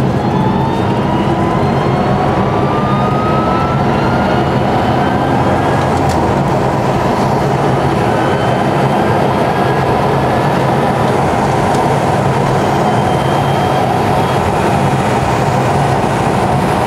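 Electric drivetrain of an EV-converted Porsche 911 under acceleration, heard from inside the cabin: a thin whine rises in pitch over the first several seconds as the car gathers speed, with fainter rising whines later, over steady road and wind noise.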